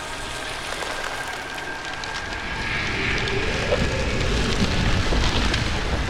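Designed sound effect of water and rope freezing over: a crackling hiss of spreading ice, with a low rumble that swells from about halfway through.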